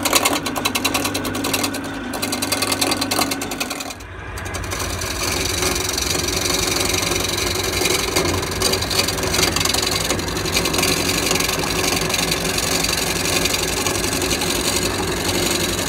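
Wood lathe running while a hand-held turning chisel cuts along a spinning wooden cylinder: a continuous scraping cut over the motor's hum, with a fast, even chatter. About four seconds in the sound shifts to a hissier rasp as the cut continues, smoothing the roughed-out blank toward a round cylinder.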